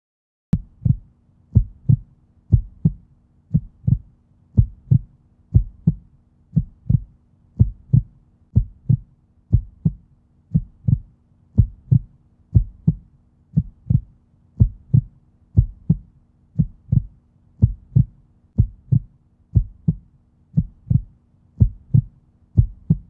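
Heartbeat sound effect: a steady, paired lub-dub thump about once a second, starting about half a second in, over a faint low steady hum.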